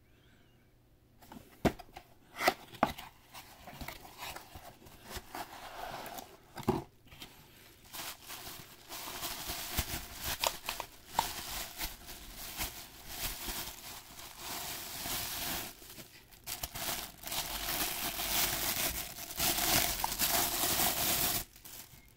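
Packaging of a boxed alarm clock being unwrapped and torn open by hand: a few sharp knocks in the first few seconds, then long stretches of crinkling and tearing of wrapping that grow loudest near the end.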